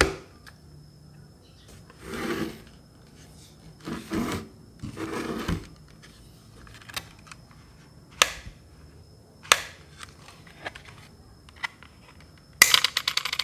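Hard plastic body of a small clip-on fan being handled and turned over: a few brief rubbing and scraping sounds, some single sharp clicks, and a quick rattle of clicks near the end as the fingers work the wire hook on the base.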